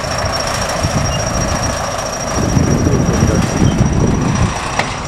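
A 17-tonne crawler bulldozer running and moving on its tracks while it grades and compacts a dirt road: a rough, shifting low rumble with a steady high whine throughout.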